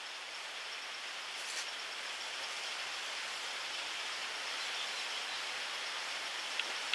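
Steady rushing outdoor noise, slowly growing louder, with a faint click near the end.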